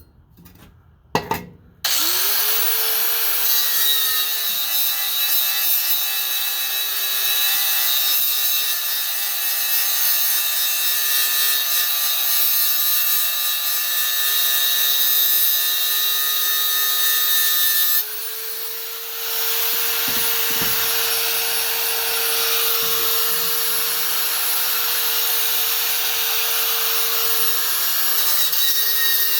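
Angle grinder spinning up about two seconds in and running steadily with a high whine, grinding steel clean ready for welding. After about 18 seconds the grinding noise drops away for a moment and the whine rises a little as the disc comes off the metal, then the grinding resumes.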